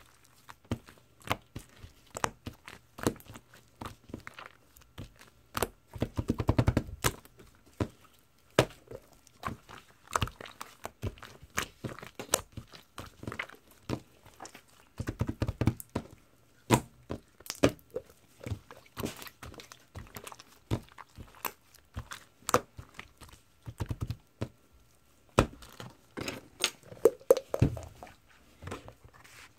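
Slime being squeezed and pressed by hand: a steady run of sticky clicks and small pops, with three bursts of quick crackling about six, fifteen and twenty-seven seconds in.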